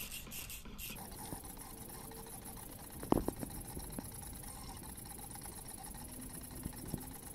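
DIY pen plotter's stepper motors driving the pen carriage along drawer slides and timing belts while it draws, a faint steady machine whine. There are a few sharp clicks about three seconds in.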